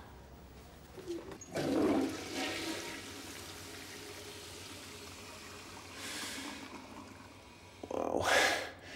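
Toilet flushing in a tiled restroom: a rush of water about a second and a half in, then a steady hiss as it runs on, and another short loud burst near the end.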